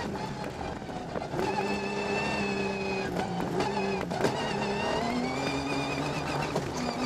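Rally car engine heard from inside the cockpit at speed on a dirt stage, its pitch climbing and dropping several times as the gears change, with a few sharp knocks over the running noise.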